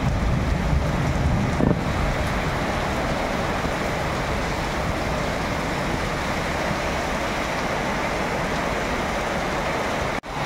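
Heavy rain pouring steadily, a dense, even hiss, with a short dropout near the end.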